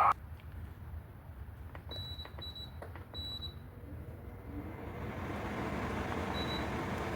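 Hisense portable air conditioner being switched on: three short high control-panel beeps, then its fan starts and a rush of air builds up over a second or so and holds steady, with one more beep near the end. Only the fan runs; the compressor has not yet started.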